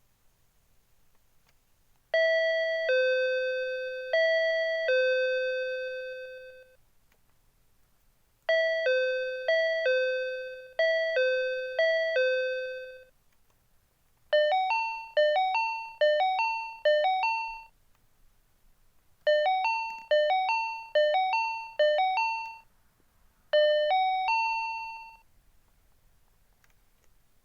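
Aiphone VH-RM security video door phone sounding several of its electronic call tones in turn. First a slow two-note ding-dong twice, then a quicker run of four ding-dongs, then two bursts of fast rising three-note chimes repeated several times, and finally one rising three-note chime.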